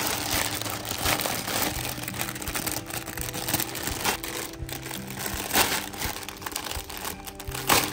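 Clear plastic packaging bag crinkling and rustling as a hand handles it, with a few louder crackles, over soft background music.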